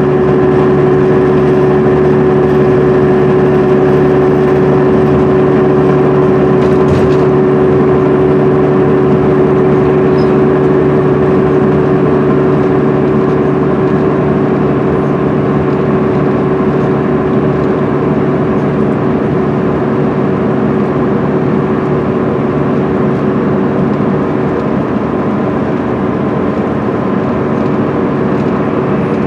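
MCI D4500CL coach cruising at steady highway speed, heard from inside the cabin: the Cummins ISM inline-six diesel and Allison B500R automatic transmission running at a constant pitch with a steady tone, under tyre and road noise.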